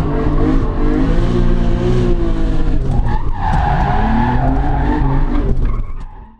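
A loud performance car engine revving, its pitch rising and falling. About three seconds in, a steady higher-pitched squeal joins for about two seconds, then the sound fades out near the end.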